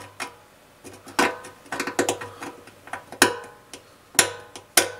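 Screwdriver tip tapping and prodding at the rusted steel fuel tank of a Trabant 601 around a pinhole: irregular sharp clicks of metal on metal, three of them louder.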